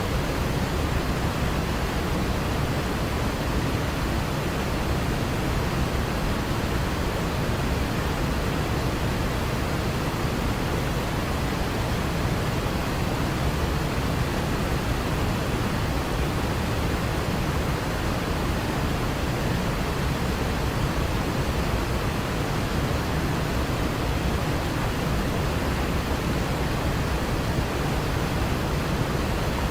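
Waterfall: falling water rushing with a steady, even noise that does not change.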